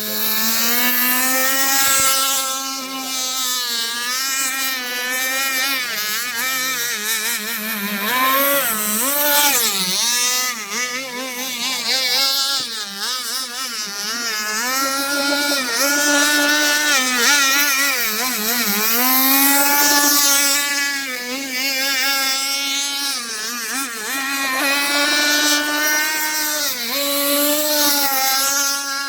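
Small petrol grass-cutter engine driving a model boat, running at high revs with its pitch swinging up and down over and over as the speed changes.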